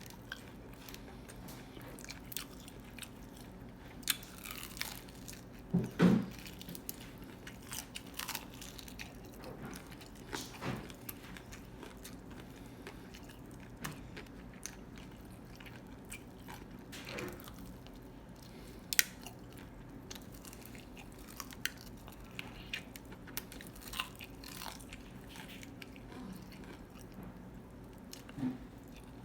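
Close-up chewing and biting of food, with scattered crunches and wet mouth clicks over a faint steady hum, and one louder knock about six seconds in.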